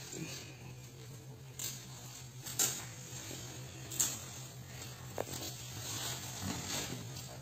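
Goats scuffling in a pen: a few sharp knocks and clicks over a steady low hum, with a faint short goat call near the end.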